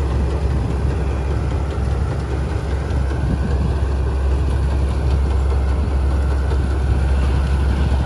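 A heavy engine running steadily, with a strong low hum under a rougher mechanical noise.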